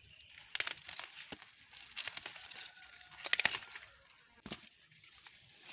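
Green maize ears being pulled and snapped off their stalks, the leaves and husks rustling and crackling in several bursts, loudest about three and a half seconds in, with a sharp snap near the end.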